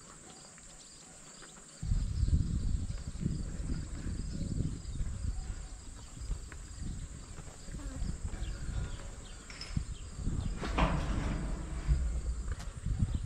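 Crickets and other field insects chirping steadily, with a loud, uneven low rumble on the microphone starting suddenly about two seconds in and a brief louder rustle near the end.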